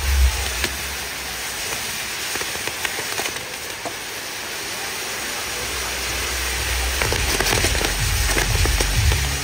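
Crackling fireworks: a dense, even crackle of many small pops, like rain. Low thuds join in for the last couple of seconds.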